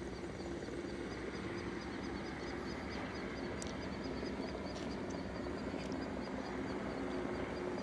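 Distant helicopter droning steadily overhead. Through it comes a rapid, faint, high chirping from a small animal, about five calls a second, in the first half.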